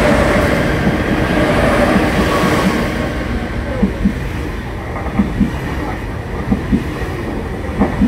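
Al Boraq high-speed train rolling past close by along the platform. It makes a steady rumble with a faint high squeal in the first few seconds. From about four seconds in, the wheelsets clack in pairs over a rail joint roughly every second and a half.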